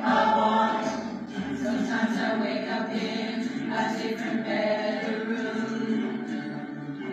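Background music of a choir singing, with several voices holding long notes together.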